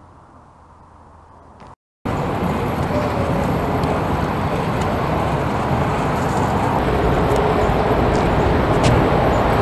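Steady loud rushing noise that starts suddenly about two seconds in, after fainter quiet ambience, with a few faint clicks near the end.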